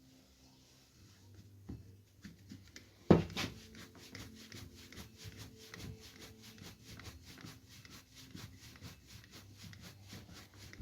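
Self-tapping screws being driven in with a screwdriver: a sharp knock about three seconds in, then a steady rapid clicking, about seven clicks a second.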